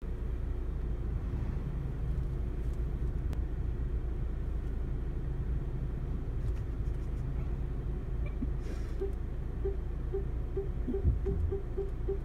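Low steady rumble of a Volvo reversing slowly, heard inside the cabin. From about nine seconds in, its parking sensors beep at one pitch, the beeps coming faster and faster as the car backs closer to an obstacle, with a couple of soft thumps near the end.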